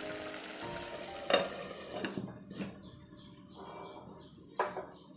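Thick paneer gravy bubbling and spattering in a kadai. A sharp clack about a second in is the loudest sound. After two seconds the glass lid is on and the bubbling goes muffled, with a string of short high chirps and another light clack near the end.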